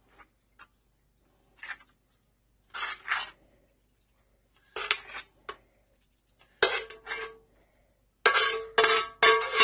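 Metal spoon clinking and scraping against a cast-iron skillet and a glass baking dish as thick meat sauce is spooned out. The strokes come one at a time about a second apart, then turn quicker and closer together with a ringing note near the end as the pan is scraped clean.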